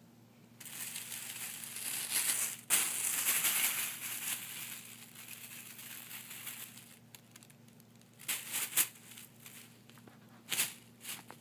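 Thin plastic shopping bag crinkling and rustling as it is grabbed and pushed about. The rustle is loudest in the first few seconds, then quieter, with a few short, sharp crinkles near the end.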